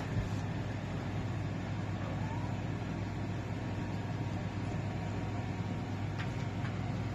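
Steady low hum under an even hiss, with a couple of faint ticks near the end.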